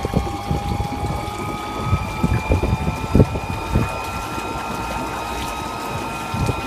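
Electric boat motor running with a steady whine that creeps slightly up in pitch, over rushing and splashing water.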